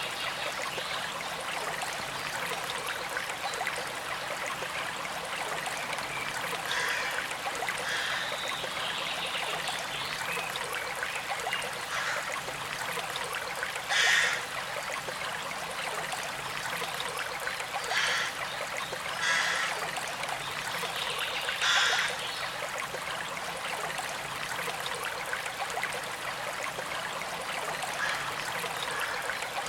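Steady running water of a stream, trickling and babbling, with several short louder sounds breaking through now and then, the loudest about 14 and 22 seconds in.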